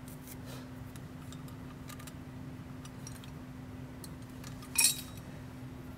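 Small metal clicks and clinks as a steel muffler flange with studs is handled and fitted against an APU's exhaust outlet flange, with one sharper, louder clink near five seconds in. A steady low hum runs underneath.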